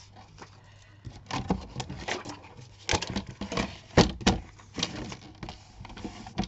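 A sheet of white paper being handled and turned on a plastic sliding paper trimmer: rustling paper with a string of sharp clicks and knocks, the loudest about three and four seconds in.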